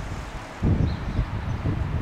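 Wind buffeting the microphone in gusts, the rumble swelling sharply about half a second in, with a faint short high chirp near the middle.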